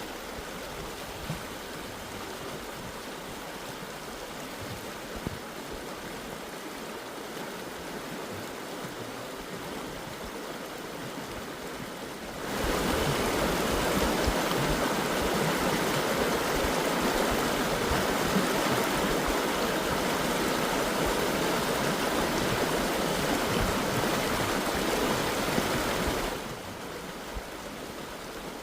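Rushing water of Tumalo Creek, a steady even hiss. It jumps abruptly louder about halfway through and drops back just as abruptly near the end.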